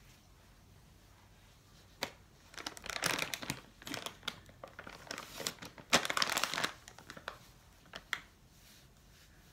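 A paper tissue being crumpled and rustled in the hands, in irregular crinkling bursts that start about two seconds in and are loudest about six seconds in, with a couple of short sharp crackles near the start and near the end.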